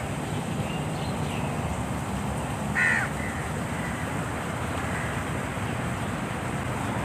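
A bird gives one loud, short, harsh call about three seconds in, with a few fainter short chirps around it, over a steady rushing background.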